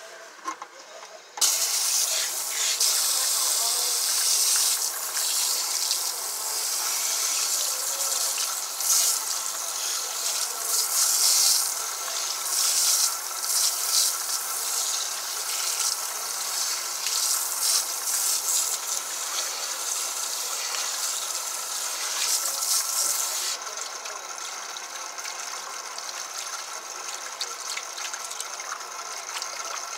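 Water from a salon shampoo-bowl sprayer switched on about a second in, hissing and splashing onto hair and into the basin, rising and dipping as hands work through the stream. It turns softer and duller near the end.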